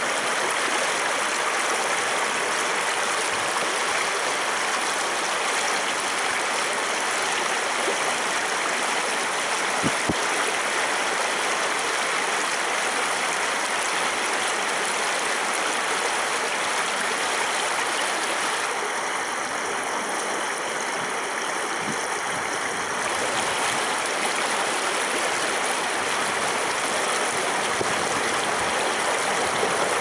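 Shallow winter stream running over rocks beneath ice-edged ledges: a steady rushing, babbling flow of water.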